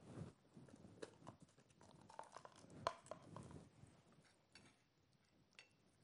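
Faint soft rustling and small clicks of gloved hands rolling stuffed chicken breast over a plate, with the loudest click about three seconds in.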